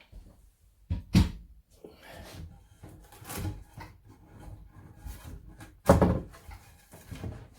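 Knocks and thuds of wooden worktop pieces being handled after a jigsaw cut: two loud knocks, about a second in and near six seconds, with lighter clattering and scraping between.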